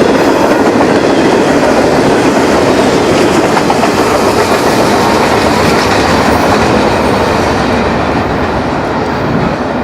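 Freight train cars rolling past on the rails, a loud steady rumble of wheels on track that begins to fade in the last couple of seconds.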